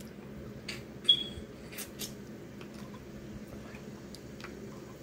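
Close-up eating sounds from crab legs in butter sauce: wet sucking and smacking at the shell and fingers, with a few sharp clicks, the loudest a brief high squeak about a second in.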